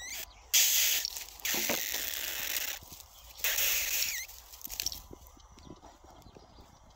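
Dry twigs and dead brush crackling and crunching in three bursts over the first four seconds, then fainter scattered rustles, as a puppy digs and noses through them.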